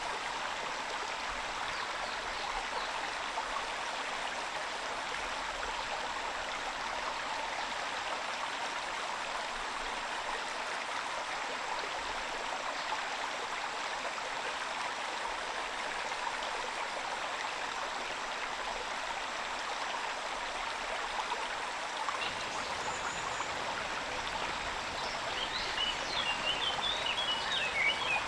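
Steady rain falling, an even hiss with no break. Near the end a few short chirping calls come through it.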